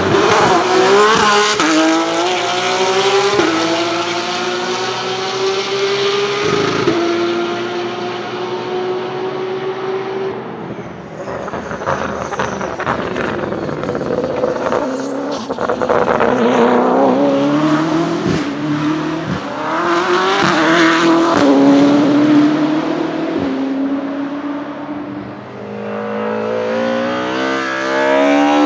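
A race car's engine accelerating hard through the gears, its pitch climbing and dropping sharply at upshifts about three and seven seconds in. Around the middle it comes off the throttle with a run of sharp pops and crackles, then pulls up through the gears again.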